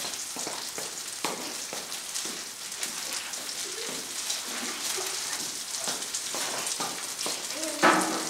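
Steak sizzling as it sears in a hot pan, a steady hiss, with a short louder sound near the end.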